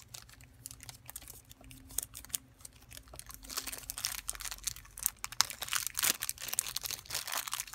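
Plastic packaging crinkling and rustling as it is handled, with many small crackles and clicks that get louder in the second half, as earphone accessories are unpacked.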